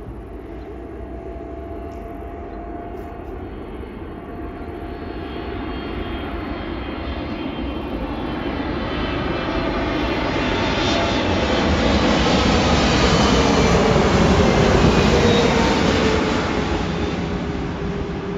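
Boeing 777-300ER's GE90-115B turbofans on landing approach: jet noise swelling as the airliner closes in, loudest about three-quarters of the way through as it passes, with an engine whine falling in pitch as it goes by, then easing off.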